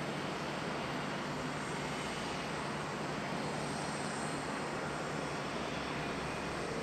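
Steady jet noise from an Airbus A330-300 airliner being pushed back by a tow tug on the apron: an even rush with a faint low hum underneath, unchanging throughout.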